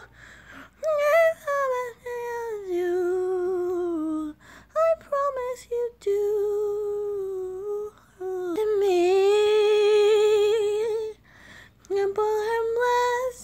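A female voice singing unaccompanied, mostly humming without clear words: long held notes that slide up and down, in phrases of a few seconds with short breaths between.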